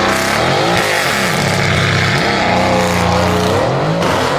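High-performance car engine revving, its pitch falling and rising several times in a row.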